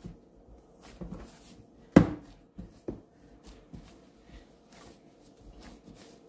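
Hands kneading dough in a glass bowl: irregular soft thumps and knocks as the dough is pushed and pressed against the bowl, with one louder knock about two seconds in.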